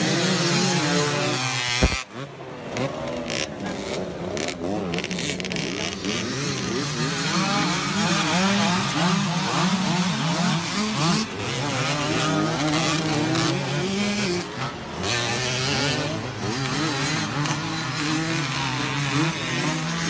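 Several motocross dirt bikes racing, their engines revving up and down and overlapping one another. A sharp thump about two seconds in.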